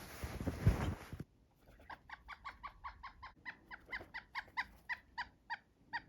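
Rustling with a couple of thumps for about the first second, then a bird calling a rapid run of short, identical notes, about four a second, slowing slightly toward the end.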